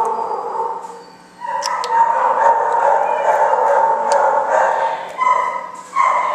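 An animal crying in long, drawn-out howls: one running about three seconds, then two short cries near the end.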